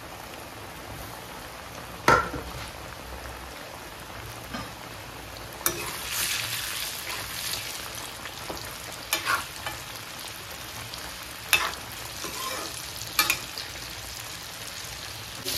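Hot oil in a steel kadai bubbling and sizzling steadily as chicken popcorn deep-fries. The sizzle grows louder about six seconds in as pale coated pieces go into the oil, and a slotted spoon knocks sharply against the pan five times.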